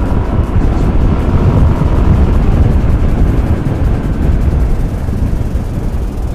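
Wind rush and buffeting on the microphone of a moving Yamaha motorcycle at about 50 to 60 km/h, with engine and road noise underneath.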